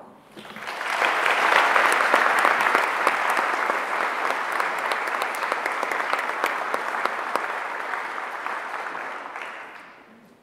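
Audience applauding, building quickly in the first second or so, holding steady, then dying away near the end.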